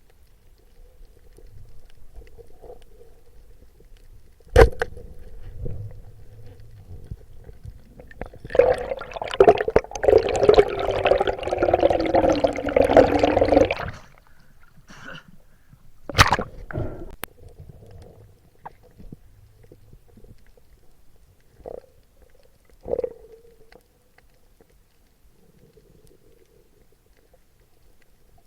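Muffled underwater sound with a faint steady hum, broken by two sharp knocks. About a third of the way in comes a burst of bubbling and gurgling lasting some five seconds, and two smaller knocks follow near the end.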